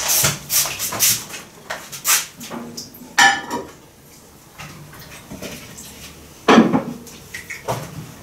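Kitchen clatter: a plate and dishes clinking and knocking as they are handled, a string of separate knocks with a louder cluster near the end.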